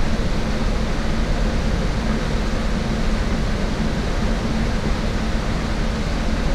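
Steady rumble and road noise heard from inside a moving shuttle bus.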